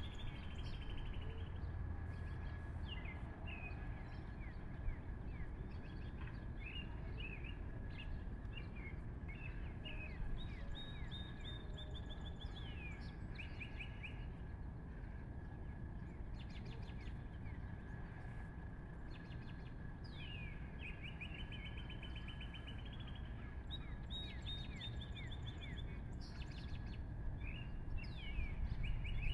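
Small songbirds chirping, with repeated quick trills and short falling sweeps, over a steady low rumble of outdoor background noise and a faint steady high tone.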